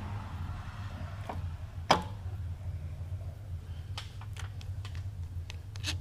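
A vertical milling machine's spindle being shifted back into gear by hand: one sharp metallic clunk about two seconds in, followed by a few lighter clicks, over a steady low hum.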